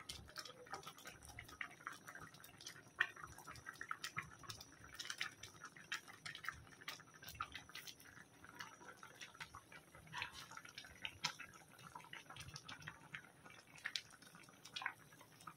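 Fish and eggplant curry simmering in a wok: faint, irregular bubbling and popping.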